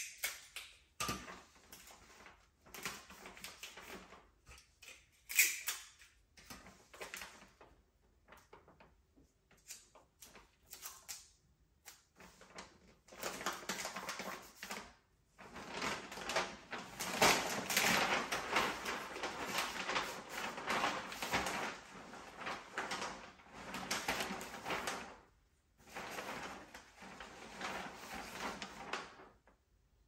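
Gift-wrapping paper rustling and crinkling as it is handled and folded, in long stretches broken by short pauses, with a few sharp taps or clicks in the first several seconds.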